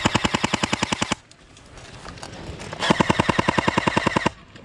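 Airsoft rifle firing two full-auto bursts of rapid, evenly spaced shots, each a little over a second long, with a gap of nearly two seconds between them.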